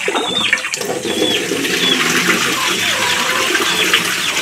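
Water running and splashing steadily into a stainless steel sink as fresh fish and then rice are rinsed by hand.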